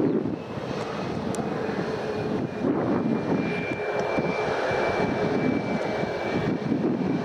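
Airliner jet engines running as the aircraft passes: a broad rush with a faint steady whine, and gusts of wind rumbling on the microphone.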